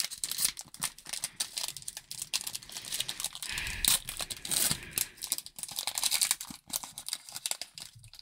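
Foil wrapper of a Panini Capstone baseball card pack being crinkled and torn open by hand: a dense, irregular crackle that is loudest about four seconds in.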